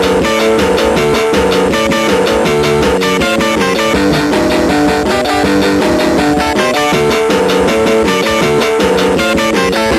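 Rock song with guitar and a steady beat, played by a 1999 Barbie Dance With Me talking boombox.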